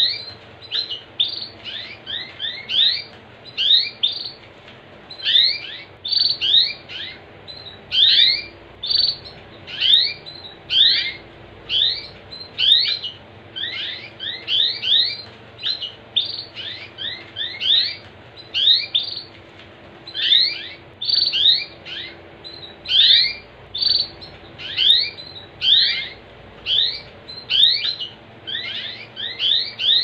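Domestic canary giving short, rising 'cuit cuit' chirps, singly, in pairs and in quick runs, several a second without a break.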